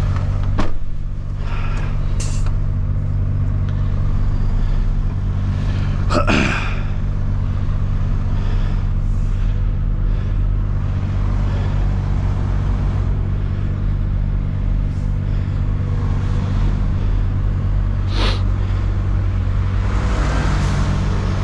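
A heavy diesel engine idling steadily, with a few short, sharp noises over it, the clearest about six seconds in and again near the end.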